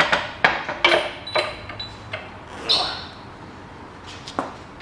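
Quick run of clicks and metal clatter from tools and parts being handled, followed by a brief clink and a couple of scattered knocks.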